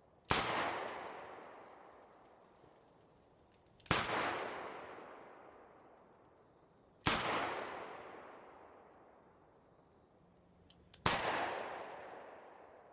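Smith & Wesson 686 Plus .357 Magnum revolver fired four times at a slow, even pace, about three to four seconds apart, each shot trailing off in a long echo. A couple of small clicks come just before the last shot.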